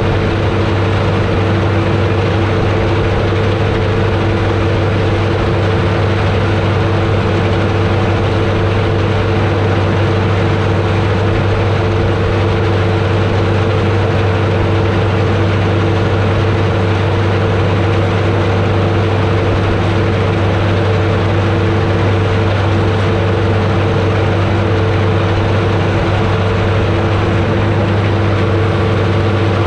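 Massey Ferguson 31 combine harvester running steadily while harvesting oats: its engine and threshing machinery make a constant low hum with steady higher tones over dense mechanical noise.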